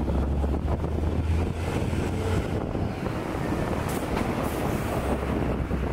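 Street traffic on a rain-wet road: vehicles passing with engines running and tyres on wet asphalt, over a deep rumble that fades out about halfway through and returns near the end.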